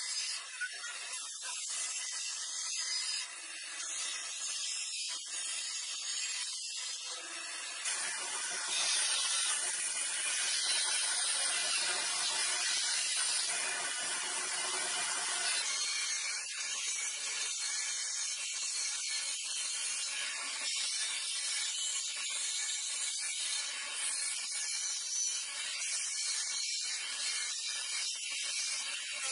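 Small band saw running and cutting through a pine board, a steady hissing rasp of the blade in the wood that grows louder and fuller for several seconds near the middle.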